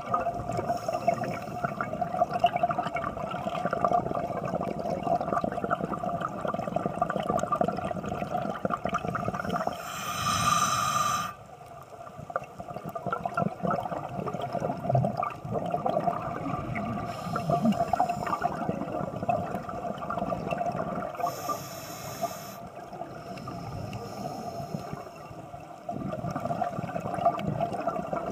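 Scuba diving heard underwater: a diver's regulator breathing, with bubbles gurgling out on the exhales and a short hiss on three inhalations, over a steady drone.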